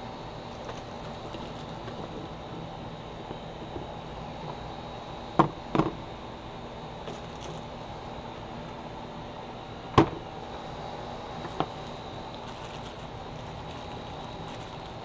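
Metal grilling tools being set down on a table, a few sharp clinks and knocks: two close together about five seconds in, the loudest about ten seconds in, and a lighter one shortly after, over a steady background hum.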